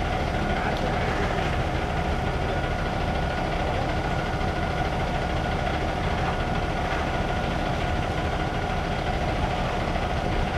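Ready-mix concrete mixer truck's diesel engine running steadily while the truck discharges concrete down its chute.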